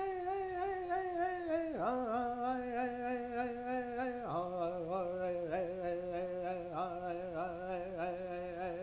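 A voice humming a chant in long, wavering held notes that drop in pitch twice, about two seconds and four seconds in.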